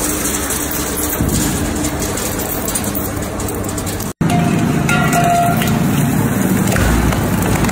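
Industrial shredders grinding metal: dense, loud machine noise as scrap metal is chewed up. After a brief cut about four seconds in, a twin-shaft shredder's rotating cutters keep running with fire extinguishers on the blades.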